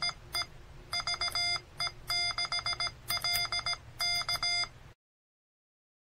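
Morse code sidetone from a Morse tutor, keyed by hand on a 3D-printed WireTap CW paddle: a buzzy electronic tone switched on and off in short and long beeps (dits and dahs). It cuts off abruptly about five seconds in.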